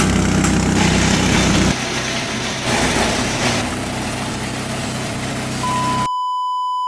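Engine of a G-20 chopper-grinder machine running steadily. About two seconds in, the sound changes to a lower, rougher machine noise. Near the end a steady electronic beep tone takes over, with all other sound cut out.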